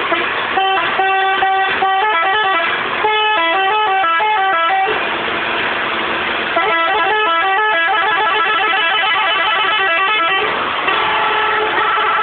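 Telolet multi-tone horn on a water tanker truck playing quick melodic phrases of stepped notes. About five seconds in, the notes give way to a noisy hiss for a second or two before the melody resumes.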